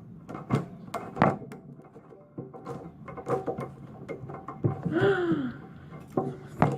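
Fluffy slime being poked and squished by hand, making a string of short sticky clicks and pops. About five seconds in there is a brief voice sound that rises and falls in pitch.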